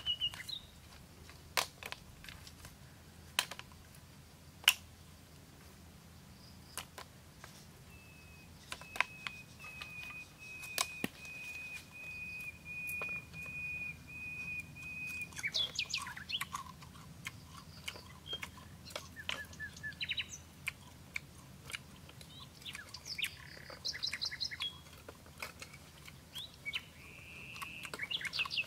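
Wild birds chirping and calling, with one long, even trill in the middle and a flurry of short chirps in the second half. A few sharp clicks sound in the first half.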